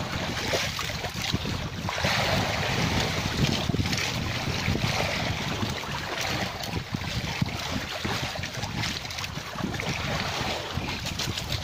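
Wind buffeting the microphone in gusts, over the wash of sea waves against a small outrigger fishing boat.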